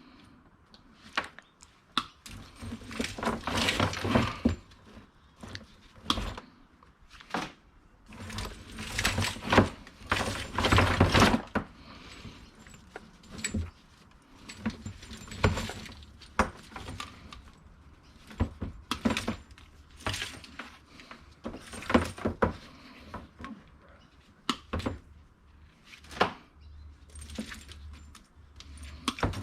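Scrap being handled and sorted by hand: irregular clinking and clattering of small hard items, with rustling and knocks, in bursts of a few seconds.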